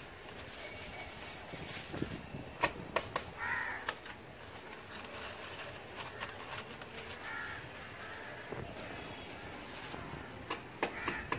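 Dry coconut-leaf midrib broom sticks clicking and rustling as a bundle is handled and pushed into a cut plastic bottle, with a few sharp clicks. Crows caw a couple of times in the background.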